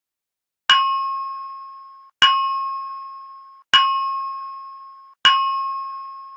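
Fire alarm evacuation speakers sounding an electronic bell alert tone: four single strikes about a second and a half apart, each ringing and dying away. It is the alert signal that comes before the recorded evacuation announcement.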